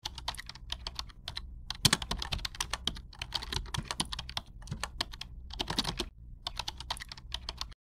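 Typing sound effect: rapid runs of key clicks with a few short pauses, stopping suddenly near the end.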